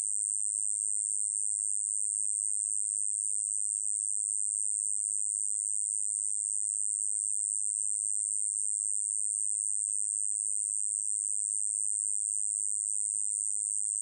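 Song of a small conehead katydid (꼬마여치베짱이): a continuous, very high-pitched buzz held at a steady level without a break.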